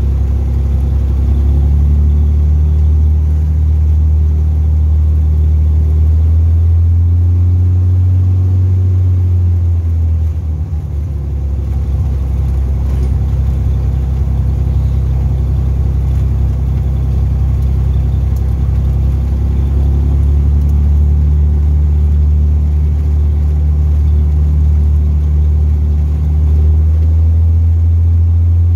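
Cessna U206F's six-cylinder piston engine and propeller running at low power while taxiing on the ground, a steady low drone. The engine note drops about ten seconds in and rises again near the end.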